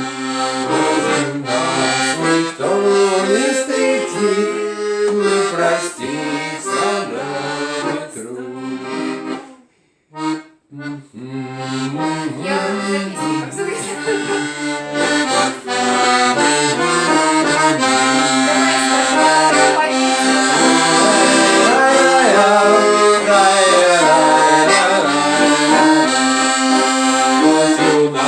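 Accordion playing a Russian romance melody over chords, with no voice. The music stops briefly about ten seconds in and then returns, fuller and louder from about sixteen seconds on.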